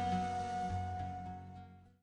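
Soft background music: a long held note over sustained low tones, fading out to nothing near the end.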